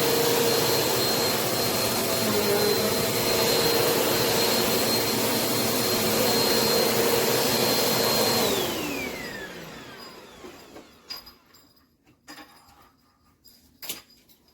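Upright vacuum cleaner running with a steady high whine and a lower hum, then switched off about eight and a half seconds in; the whine falls in pitch as the motor spins down and dies away. A few faint knocks follow.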